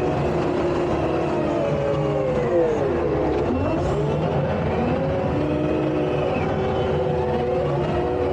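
Takeuchi tracked skid steer's diesel engine running steadily while moving dirt. Its pitch sweeps sharply down about three seconds in and climbs back a second later.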